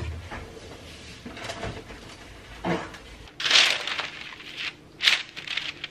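Sheet of baking paper crinkling as it is spread out and smoothed flat on a countertop. The loud rustles come about three and a half seconds in and again about a second later, after a few soft knocks.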